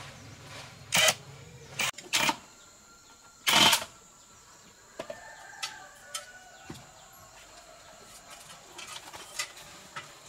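Four short, loud clattering knocks in the first four seconds, the last one the longest, then scattered faint clicks; a low hum stops about two seconds in.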